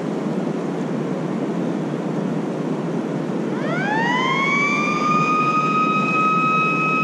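Tippy Dam's warning siren winds up about three and a half seconds in, rising quickly in pitch and then holding one steady tone. It signals that the dam is about to let more water through. A steady rushing noise runs underneath.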